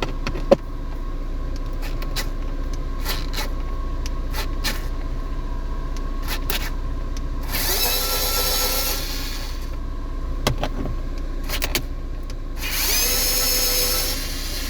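A power drill or driver runs twice, about a second and a half each time, unscrewing dashboard bolts. Small clicks of handled parts come between the runs.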